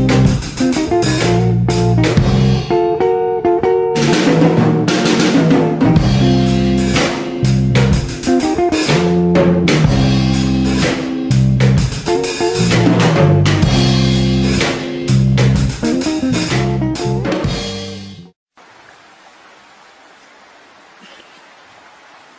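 Background music with guitar and a drum kit on a steady beat, cutting off suddenly about 18 seconds in and leaving a faint, steady hiss.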